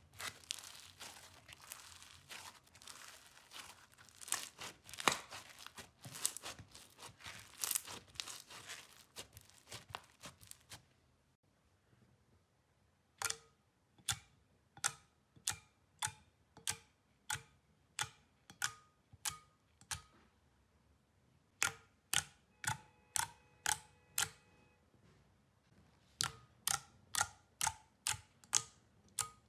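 Floam slime, slime packed with foam beads, squeezed and kneaded by hand, giving a dense crackling. After a short pause, about thirteen seconds in, fingers press into thick clear jelly slime, each press making a sharp pop, about two a second, some with a brief ringing tone.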